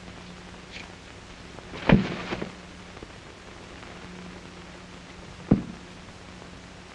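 Steady hiss and low hum of an old film soundtrack, broken by two sharp thumps: one about two seconds in, followed by a few smaller clicks, and another about five and a half seconds in.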